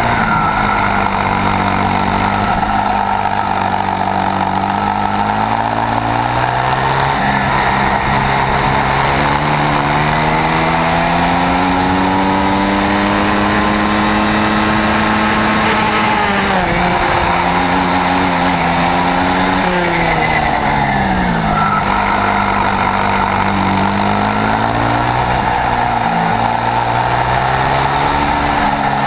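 Swissauto 250 two-stroke twin kart engine at racing speed, heard onboard. The revs climb slowly through a long straight, drop sharply about sixteen seconds in and again around twenty-one seconds as the kart slows for corners, then build up again.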